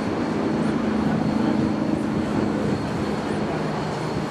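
A train of 3-foot narrow-gauge passenger cars rolling past on the track: steady wheel-on-rail noise with a low hum that eases off about three seconds in.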